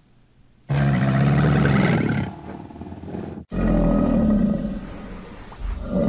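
Crocodile growling in low, drawn-out calls. Near silence comes first, then one call starts just under a second in; after an abrupt cut a second begins, and a third starts near the end.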